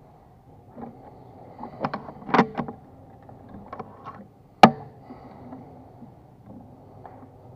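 Several sharp metallic clicks about two seconds in, then a single sharp shot from a regulated PCP air rifle a little under five seconds in.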